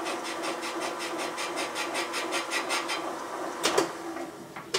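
Valve-seat machining machine running: a steady hum with a fast, even ticking, about six or seven beats a second. Two sharp clicks come about three and a half seconds in, after which the running sound fades away.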